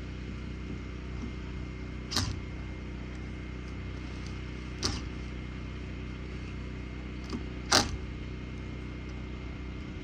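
A steady low motor hum with four sharp knocks, the last and loudest near the end.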